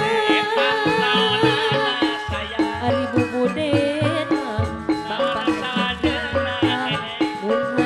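Sundanese gamelan ensemble playing: the melody is carried by bronze gong-chimes and other pitched instruments over a running pattern of kendang hand-drum strokes.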